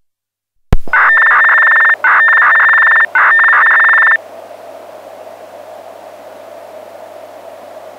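Municipal disaster-prevention radio broadcast received on a handheld scanner: a click as the signal comes on, then three loud one-second electronic tone blocks with short gaps, the system's activation signal that comes before the chime. After them, a steady hiss from the open channel.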